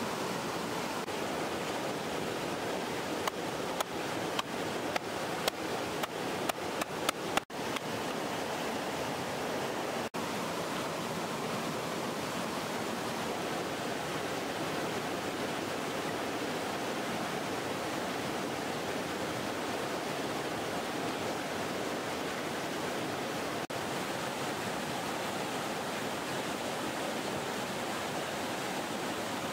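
Steady rush of a flowing stream. Between about three and seven seconds in, a quickening run of a dozen or so sharp knocks: a stone pestle pounding chili paste in a mortar.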